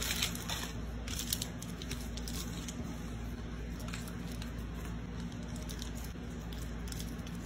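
Soft crackling and light taps of a microwave popcorn bag being pressed and handled as a rope of taffy is rolled and cut on it, a few sharper clicks about a second in, over a steady low hum.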